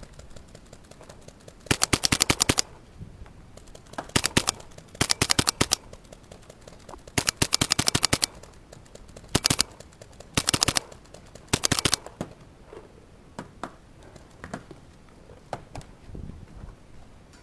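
WGP Oracle Autococker paintball marker firing seven quick strings of shots in the first twelve seconds, some short and some near a second long. Fainter scattered single pops follow.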